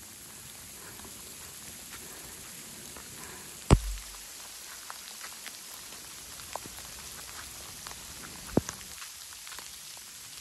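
Rain and sleet falling steadily, heard as an even hiss with scattered sharp ticks close by. A loud knock with a low thump about four seconds in and a smaller sharp tap near nine seconds.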